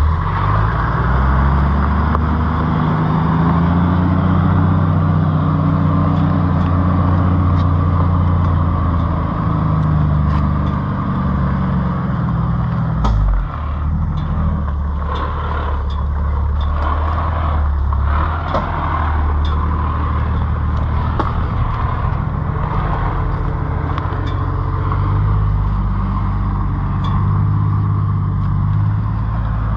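Toyota LandCruiser 80 Series engine running at low speed on a dirt bush track, its note rising and falling over the first ten seconds or so, then steadier. Scattered small clicks come from the track under the tyres.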